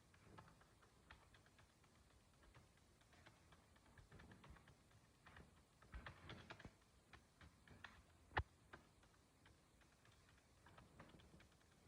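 Mechanical keyboard being typed on quickly: runs of crisp key clicks in uneven bursts with short pauses, one key strike much louder than the rest about two-thirds of the way through.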